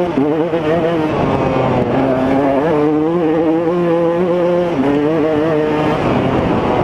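2015 KTM 200 XC-W single-cylinder two-stroke dirt bike engine running hard under way, its pitch dipping and climbing several times as the throttle is worked.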